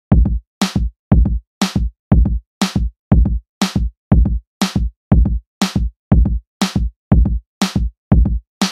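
Background music: an electronic drum-machine beat, low kick and brighter snare hits alternating about twice a second, which starts abruptly.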